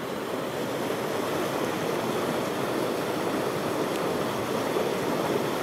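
Creek water rushing steadily, an even noise with no breaks.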